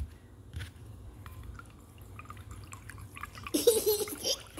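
Water in a glass bowl stirred with a wooden stick: small drips and light taps, then louder sloshing and splashing near the end as the stirring gets going.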